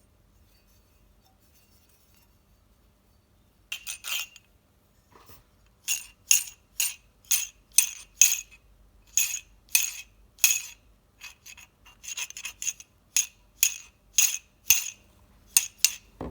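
Repeated short scraping or rasping strokes by hand on a small hard part, about two a second. They start a few seconds in and continue steadily with a few brief gaps.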